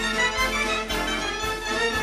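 Brass band music, with several wind instruments playing together over a steady drum beat of about two strokes a second.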